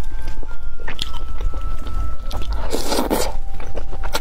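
Close-miked eating sounds: biting into and chewing sauce-coated skewered food, a green chili pepper among it, with scattered wet clicks and one loud crunchy bite about three seconds in.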